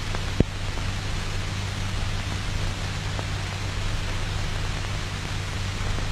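Steady hiss and low hum of an old film soundtrack, with one sharp click about half a second in and a fainter tick near the three-second mark.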